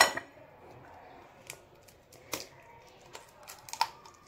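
An egg tapped on the rim of a bowl and cracked open: a few sharp clicks, the loudest about two seconds in, then a quick cluster of small cracks near the end.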